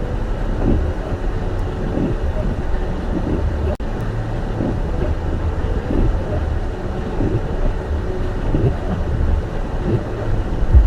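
Car cabin driving noise: a steady low rumble of tyres and engine while driving on a snowy road.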